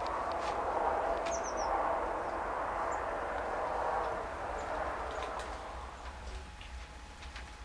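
Outdoor ambience: a steady hiss with scattered light ticks, and a few short bird chirps about one and a half seconds in. It grows quieter after about six seconds.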